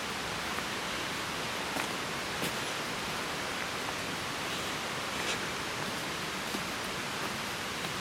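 Steady rushing hiss of forest trail ambience, with a few faint short rustles.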